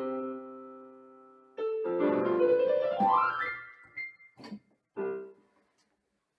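Electronic keyboard on a piano voice: a held chord dies away, then a new chord and a quick upward run ending on a high held note. A couple of sharp knocks follow, then one short chord, and the playing stops.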